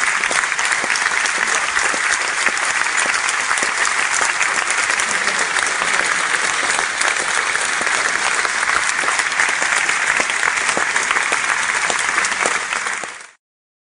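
A large audience applauding, a dense, steady clapping that cuts off abruptly near the end.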